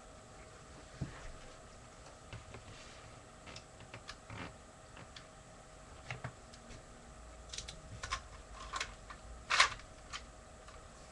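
Plastic Lego pieces of a brick-shooter gun clicking and snapping as it is handled: scattered sharp clicks, more frequent in the second half, the loudest about nine and a half seconds in.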